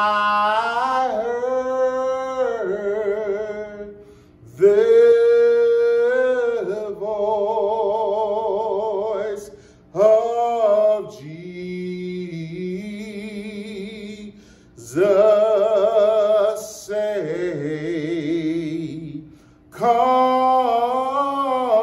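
A man singing a slow gospel hymn solo and unaccompanied, in five long drawn-out phrases with heavy vibrato, taking short breaths between them.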